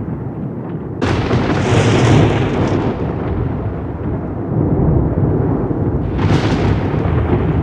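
Rolling thunder rumbling steadily, with a sharp crack about a second in that rolls away over the next couple of seconds, and a second crack near the end.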